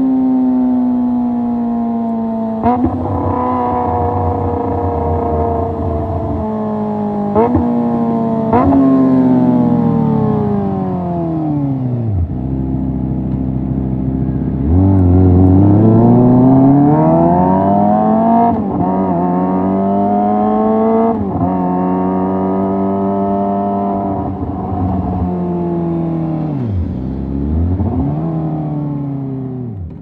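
Kawasaki ZX-25R's 250 cc inline-four through a Leo Vince GP Corsa Evo short full-system exhaust, very loud while riding: the revs fall and climb again and again, jumping at each gear change with a sharp crack. It drops to a low steady note in the middle, pulls hard back up the rev range, then winds down with quick downshift blips near the end.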